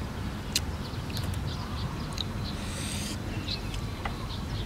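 Longan shells being cracked and peeled by hand, a scatter of short crisp cracks every second or so over a steady low rumble.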